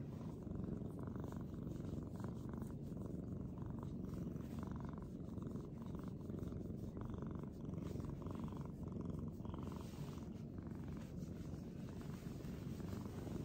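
Tabby cat purring steadily as it is stroked and scratched under the chin, a contented purr.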